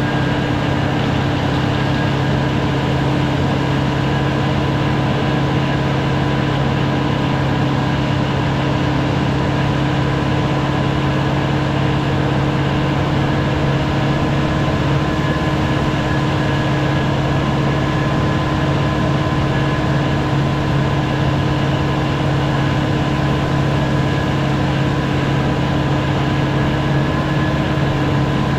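Kubota LX4020 compact tractor's diesel engine running steadily at working speed, driving a leaf-blower attachment, with a steady low hum and a thin constant whine over the engine noise.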